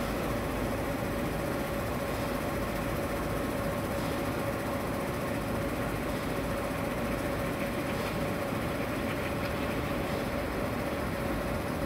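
Floating jet aerator running steadily, its motor humming at one unchanging pitch over the rush of the water it churns.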